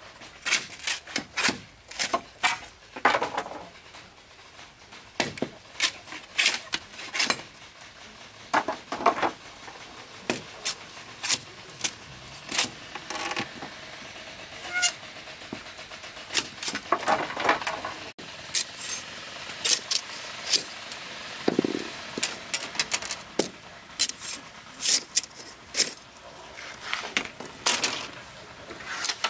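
A green bamboo pole being split lengthwise with a machete: irregular sharp knocks and cracks as the blade bites and the bamboo splits apart.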